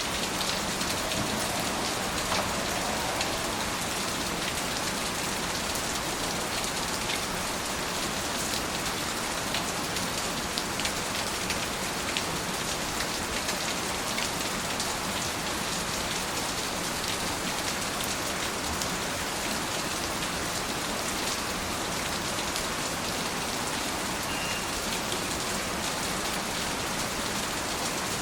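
Steady, even rain with many small drop taps scattered through it.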